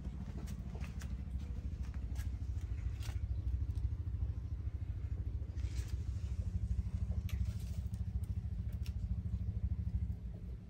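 A steady low motor hum runs throughout, with a few faint clicks and scrapes on top.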